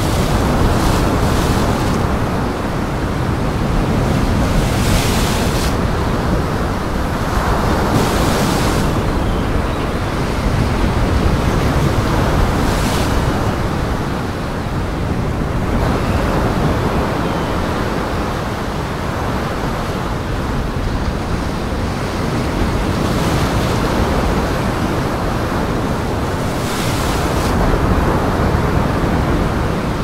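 Heavy surf: waves breaking and rolling in, a steady rush with brighter crashes of spray every few seconds.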